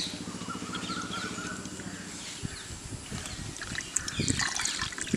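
Sesame oil poured in a thin stream into a clay cooking pot, a soft trickle. A steady low hum runs under the first half and stops about two and a half seconds in, after which faint irregular crackles are heard.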